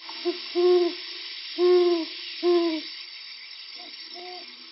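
An owl hooting in a series of calls, three loud hoots in the first three seconds and then softer ones, over a steady high hiss.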